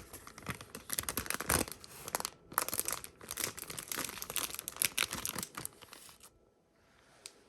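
Plastic wrapper of a Japanese convenience-store egg sandwich being torn open and crinkled, with irregular crackling for about six seconds and then stopping.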